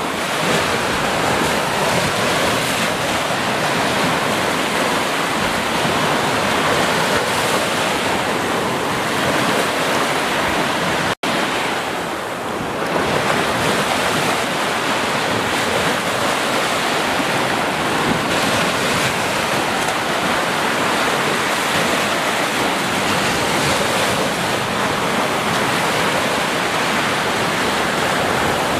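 Small ocean waves breaking and washing up a sandy beach in foam, a steady rushing surf. The sound cuts out for an instant about eleven seconds in.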